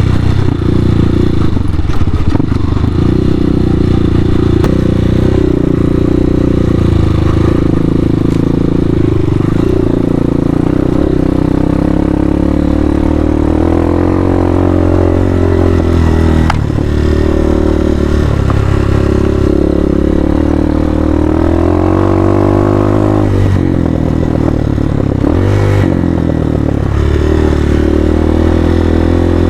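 Hawk 250 dual-sport motorcycle's single-cylinder engine running under load while being ridden off-road. The revs rise and fall with the throttle, easing off briefly about 16 seconds in and again about 23 seconds in.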